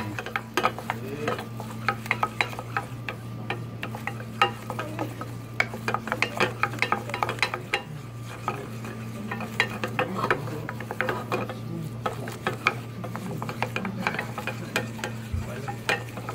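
Wooden spatula stirring and scraping a flour roux around a stainless steel saucepan, a quick irregular run of short scrapes and taps against the pan, over a faint sizzle and a steady low hum. The roux is being toasted on past white toward the blond stage.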